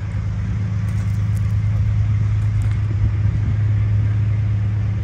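The 1983 Thibault aerial ladder truck's engine running steadily, a constant low drone, keeping the ladder's hydraulics powered while the aerial is extended.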